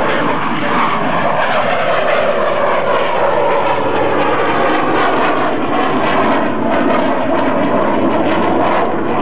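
A MiG-17F jet fighter's Klimov VK-1F turbojet, heard as a steady, continuous roar as the jet flies past, its pitch sinking slowly.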